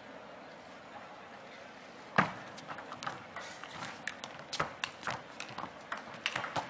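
Table tennis rally: a knock about two seconds in as play starts, then a quick, irregular run of sharp clicks as the ball strikes the rackets and the table.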